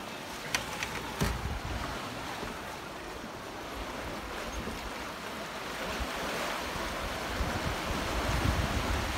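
Sea waves washing against granite rocks and a stony shore: a steady rush that slowly grows louder. A few sharp clicks and a knock come in the first second and a half.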